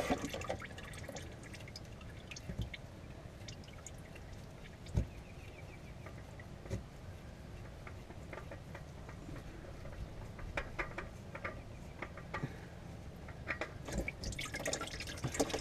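Engine oil dripping into a drain pan from the oil filter spot just after the filter comes off, with scattered small ticks and a few knocks.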